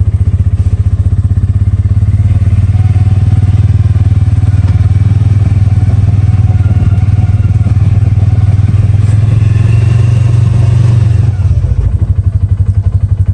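Polaris Ranger 570 side-by-side's single-cylinder engine running as it drives, a steady low throb heard from inside the cab. Its pitch rises slightly, then it eases off about eleven seconds in.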